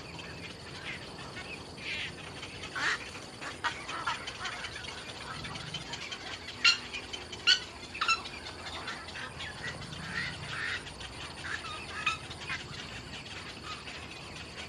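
Birds calling with short chirps scattered throughout, and two sharp, louder calls about seven and seven and a half seconds in.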